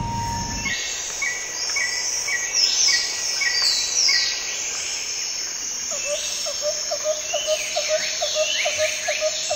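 Tropical forest ambience: a steady high buzz of insects under repeated short bird chirps and falling whistled calls. From about six seconds in, a lower, quicker run of short repeated calls joins in. A held music note cuts off in the first second.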